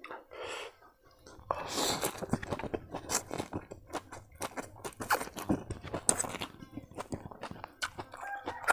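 A person slurping noodles into the mouth and chewing, with wet smacking mouth clicks.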